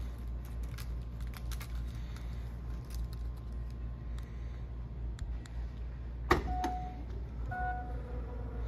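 Power tailgate of a Mercedes-AMG GLA 35 opening. A sharp latch click comes about six seconds in, then two short electronic beeps, then the steady hum of the tailgate motor lifting the hatch. Light clicks and rattles come in the first few seconds, over a steady low hum.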